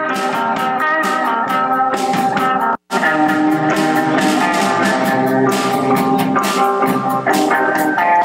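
A rockabilly band plays live: electric guitars, upright bass and a drum kit in an instrumental stretch without vocals. The sound cuts out completely for an instant about three seconds in.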